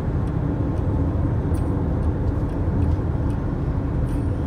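Steady low rumble of road and wind noise inside a car driving at highway speed, with a few faint light ticks now and then.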